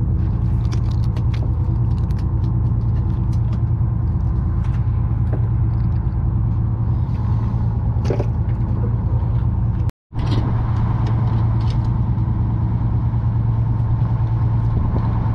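Charter fishing boat's engine running with a steady low hum, with scattered light clicks and knocks from fishing tackle handled at the rail.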